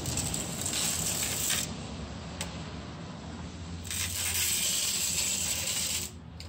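Section of car exhaust pipe dragged on cardboard across a concrete floor: two stretches of scraping, the first about a second and a half long and the second about two seconds, with a single click between them.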